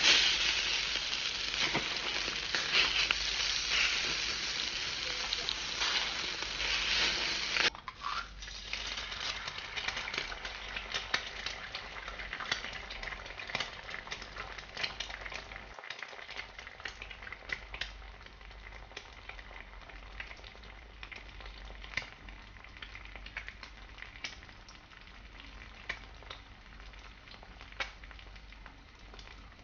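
Food frying in a hot pan: a dense sizzle with crackles and pops. About eight seconds in it drops suddenly to a quieter sizzle with scattered pops.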